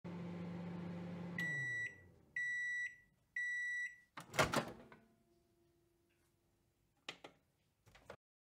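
Microwave oven running with a low hum that winds down about a second and a half in. It then beeps three times as its done signal, and the door pops open with a loud clunk. A few light clicks follow near the end.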